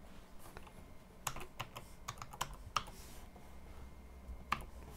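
Typing on a computer keyboard: a quick run of key clicks from about a second in, then a single keystroke near the end.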